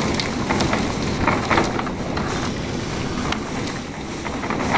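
Hurricane wind and rain: a loud, steady rush broken by frequent short gusting surges.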